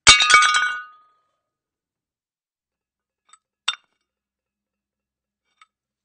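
Plates smashing: a sharp crash with pieces ringing and scattering for just under a second, then a lone shard clinking once about halfway through, with a faint tick near the end.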